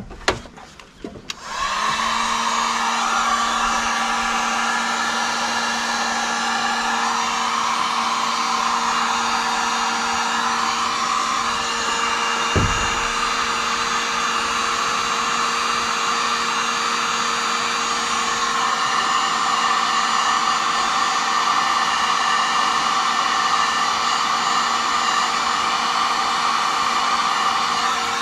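Electric heat gun switched on about a second and a half in and running steadily, a constant rush of air over a steady motor hum, as it shrinks heat-shrink tubing over wire connectors. One short knock near the middle.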